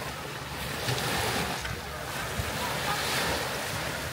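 Small sea waves washing onto a pebble beach, surging twice, with wind rumbling on the microphone.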